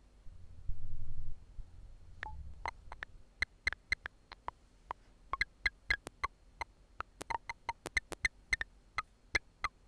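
Separated components of an audio recording, from NMF source separation, played back one at a time. A low rumble comes first and stops after about a second and a half. Then comes a string of about twenty short, sharp clicks with a slight pitched ring, irregularly spaced.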